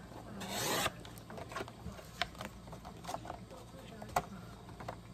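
Sliding paper trimmer's blade run along its rail, cutting through a sheet of card in one swish of about half a second. Then light clicks, taps and rustles of the cut paper being handled, with one sharper click about four seconds in.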